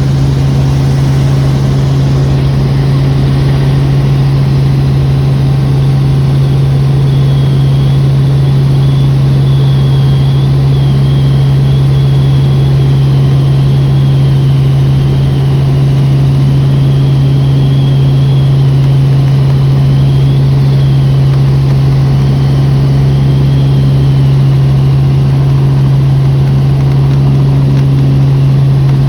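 Tour helicopter's engine and rotors droning steadily, a loud, unchanging low hum with a faint wavering high whine over it.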